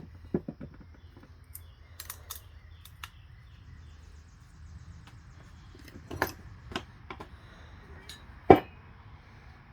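Scattered clinks and knocks of steel automatic-transmission internals being handled and set down, the loudest knock about eight and a half seconds in, over a steady low hum.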